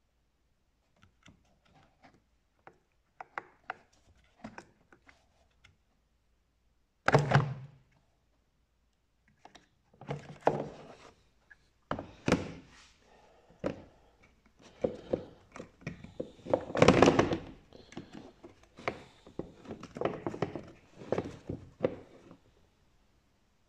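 Plastic air filter housing of a Renault Megane 4 1.5 dCi being handled: a series of clicks and knocks as the lid is unclipped and the panel filter is lifted out and set back into the box. A sharp thunk comes about seven seconds in, with the loudest knocking around seventeen seconds.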